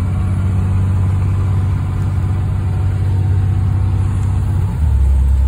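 School bus engine running as the bus drives, heard from inside the cabin as a steady low hum. Near the end the engine note drops lower and gets louder.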